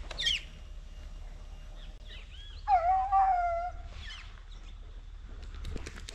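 Boar-hunting dogs yelping and whining in short, high, wavering cries, with one long howl of about a second roughly three seconds in.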